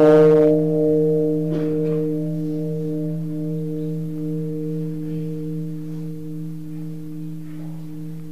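A large Buddhist bowl bell, struck once, ringing on in several steady tones that slowly fade away.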